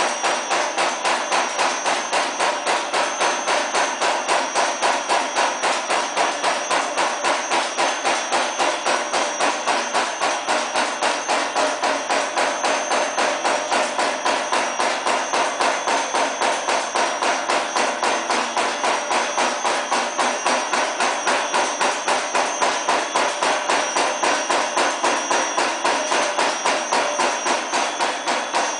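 Silicon high-speed mechanical stamping press running continuously: its ram strikes in a rapid, even rhythm as strip is fed through from a coil.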